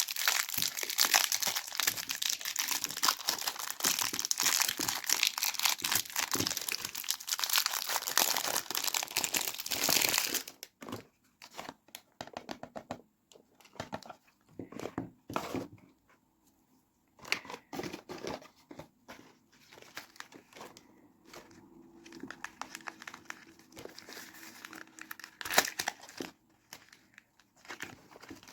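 Soap packaging being unwrapped by hand, the wrapper crinkling and tearing. The crinkling is dense and continuous for about the first ten seconds, then thins out into scattered crinkles and small clicks.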